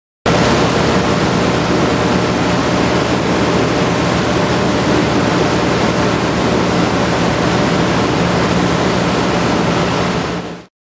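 Motorboat under way: a steady engine drone under loud rushing wind and water noise on the microphone. It starts suddenly and cuts off just before the end.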